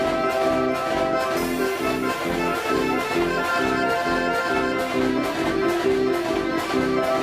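A 105-key Decap fairground organ playing a tune: reedy, accordion-like chords over a steady beat of repeated chord strokes.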